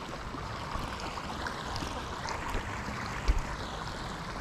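Steady rush of flowing water, with one brief low thump about three seconds in.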